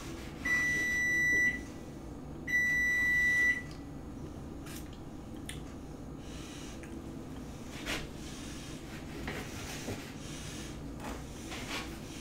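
Kitchen range timer beeping: two steady, high one-second beeps about a second apart, the signal that the countdown has run out. Faint scattered clicks and knocks follow.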